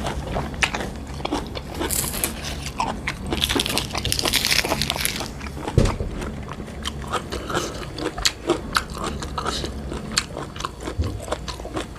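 Close-miked eating of a steamed bamboo-shoot dish: biting and chewing with crisp crunches and wet mouth clicks, and a denser run of crunching about two to five seconds in.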